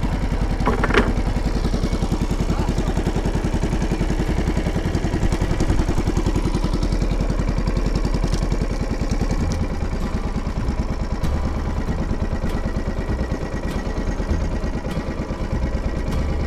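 A small boat's engine running steadily with a fast, even putter.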